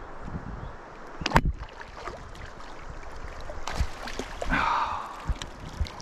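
Water splashing and lapping around a kayak while a hooked smallmouth bass is fought at the boat, with two sharp knocks, the louder about a second and a half in.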